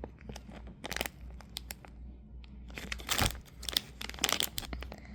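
Plastic packaging of a squishy toy crinkling and crackling as it is handled, in irregular crackles that come thickest a little past the middle.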